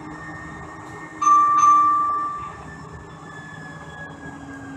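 Inside a Siemens S200 LRV4 light-rail car: steady running noise, and about a second in a sudden loud, high ringing tone that starts with two sharp strikes in quick succession and fades away over about a second.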